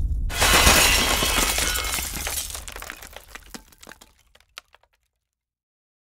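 A sudden shattering crash about a quarter second in, fading away over about four seconds with scattered small clinks.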